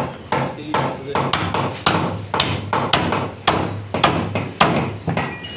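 Butcher's cleaver chopping mutton into chunks on a round wooden block: a steady run of sharp chops, about two a second.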